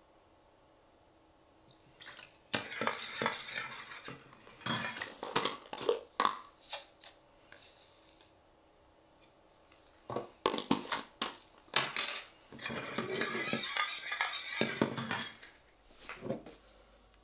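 Metal measuring spoon clinking and scraping against a small stainless steel bowl while a soy-based dipping sauce is mixed: two spells of quick stirring, each a couple of seconds, with separate clinks of the spoon on the bowl rim between them.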